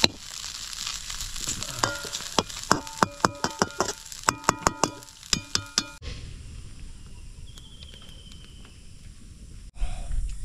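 Food sizzling in a hot metal pan, then from about two seconds in a quick run of sharp metallic clanks with a ringing tone, a metal spatula striking the pan while stirring. After about six seconds it drops to a quieter stretch.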